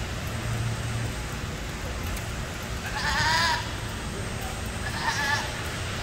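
Boer goats bleating: a long, wavering bleat about three seconds in and a shorter one about two seconds later.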